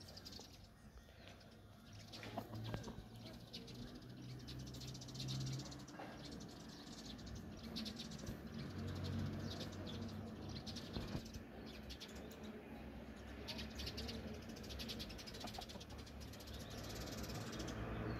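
Small birds chirping and twittering in repeated quick bursts, over a low steady hum.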